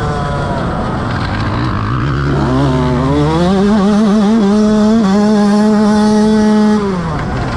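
Motocross bike engine. It comes off the throttle, then climbs in revs with a few wavering blips, holds high and steady for about two seconds, and drops back near the end.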